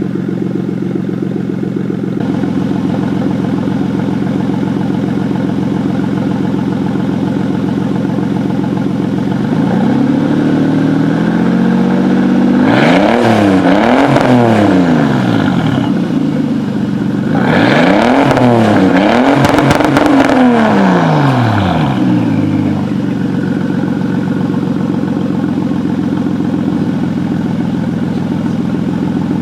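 Toyota Supra 2JZ-GTE twin-turbo straight-six, breathing through a Tomei Expreme Ti titanium exhaust with the catalytic converters still fitted, idling steadily. About ten seconds in it is blipped in a quick series of revs, rising and falling in pitch, then a second series follows about seven seconds later before it settles back to idle.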